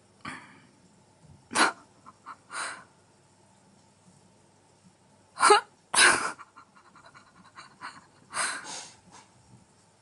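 African grey parrot making short, sneeze-like breathy puffs, about seven of them, spread out singly and in pairs.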